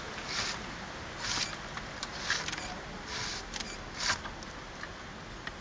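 Cane being drawn by hand through blades fixed upright in a wooden stump, splitting it into strips: short rasping scrapes about once a second, with a few small clicks between.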